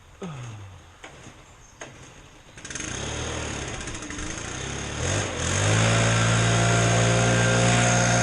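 Engine running. It starts abruptly a couple of seconds in, revs up about five seconds in, then holds a steady speed.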